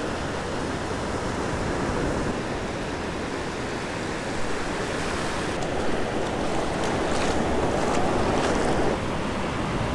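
Surf washing up the beach in a steady rush, a little louder toward the end and easing off about a second before it ends.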